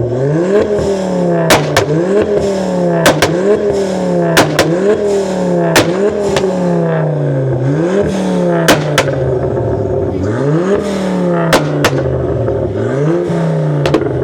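Tuned car engine revved over and over in quick blips, about one every second and a half, its pitch rising sharply and falling back each time, with loud exhaust bangs that often come in pairs: a pop-and-bang tune spitting flames from the exhaust.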